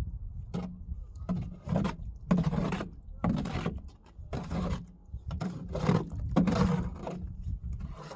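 Repeated scraping strokes, roughly one every second, irregular in length and force, as of a tool being worked over a rough surface.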